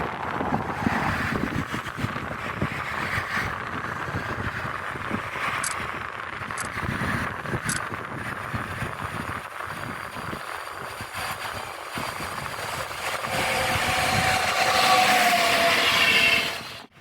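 A train running past with a steady rumble, and a high-pitched squeal with several tones building up near the end before it cuts off abruptly.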